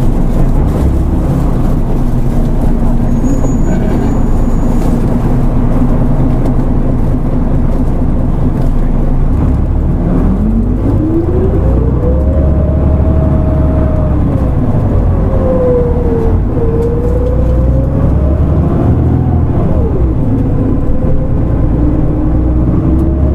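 Mitsubishi Fuso Aero Star (QKG-MP37FK) city bus under way, its diesel engine droning low and steady. About ten seconds in, a whine climbs in pitch, holds, dips and climbs again, then falls away near the end as the bus accelerates and changes speed.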